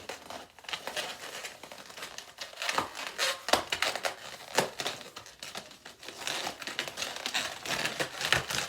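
Inflated latex twisting balloons handled by hand while being tied and twisted, giving an irregular run of rubbing, squeaks and crinkly scrapes.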